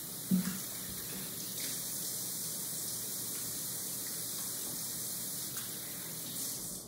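Kitchen faucet running into a stainless steel sink, a steady hiss of water, cut off at the very end. A short knock sounds a moment in.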